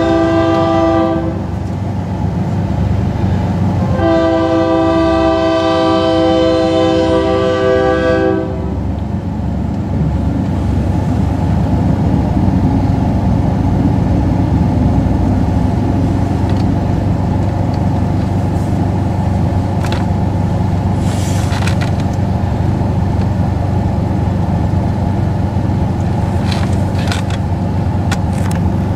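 Diesel locomotive horn on a Georgia Central EMD GP20 freight train: a blast that ends about a second in, then a longer blast from about four to eight seconds. After that comes the steady rumble of the locomotives and freight cars rolling through the grade crossing, with a few sharp clicks near the end.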